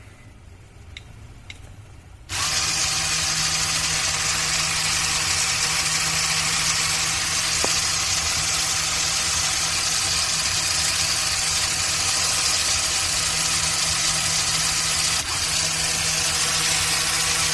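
The Bluetooth RC car's small DC motors, driven through an L298N motor driver board, switch on about two seconds in on the 'forward' command and run with a steady electric whir. The whir falters briefly once, near the end.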